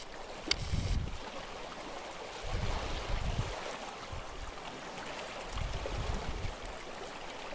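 Small waves lapping at a pebble shore, with gusts of wind buffeting the microphone every few seconds.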